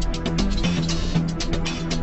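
Music with a fast run of percussion hits over held low notes and heavy bass.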